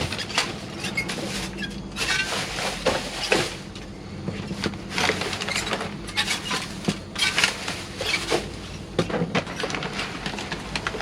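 Rummaging through discarded items: objects and packaging rustling and knocking against each other as they are handled, irregular clicks and scrapes over a steady low hum.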